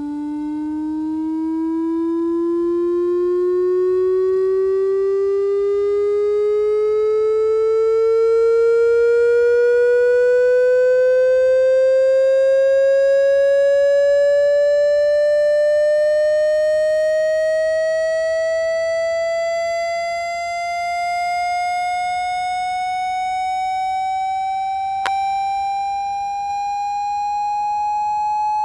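Electronic water-ejection tone for clearing water from a phone speaker: a buzzy tone with many overtones that glides slowly and steadily upward in pitch, from a low hum to a high whine. A single faint click sounds near the end.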